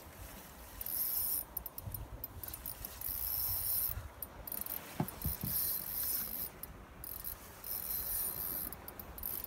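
Fishing reel's drag and gears running in repeated high-pitched spells of a second or two as a hooked fish pulls against the hard-bent rod.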